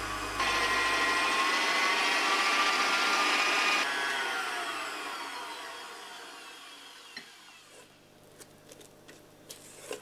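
Stand mixer motor beating cake batter with a steady whine, switched off about four seconds in, its pitch falling as it spins down and fades out. A few faint light clicks near the end.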